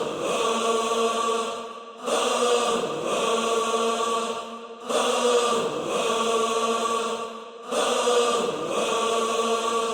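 Song intro made of a sped-up, choir-like sustained vocal sample, with no drums, repeating in four phrases a little under three seconds each.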